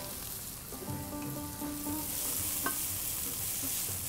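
Thinly sliced onions sizzling in olive oil in a frying pan while a wooden spatula stirs them, as they soften. The sizzle is a steady hiss that swells in the middle.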